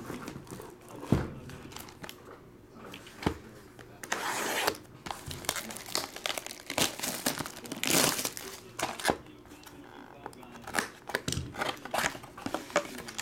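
Plastic shrink wrap being cut, torn and crinkled off a sealed cardboard trading-card box, with two sharp knocks early on as the boxes are handled.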